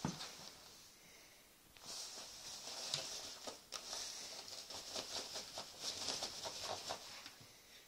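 A thump at the start, then from about two seconds in a cat rubs and paws at a pair of swimming trunks, the fabric rustling and crackling in quick irregular strokes.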